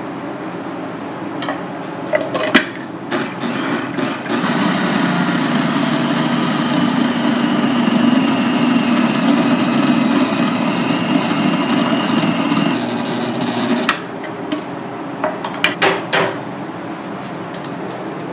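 Small electric food processor running for about nine seconds, its motor giving a steady whine as it blends minced fish and starch into a paste, then cutting off. Before it starts and after it stops, sharp clicks and knocks of the plastic bowl and lid being handled.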